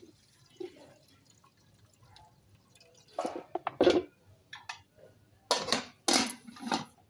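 A thin stream of milky liquid dripping into an aluminium pot, faint at first. Then two bursts of loud metal clatter and scraping from the pots, a wooden spoon and an aluminium pot lid, the second near the end as the lid is put on.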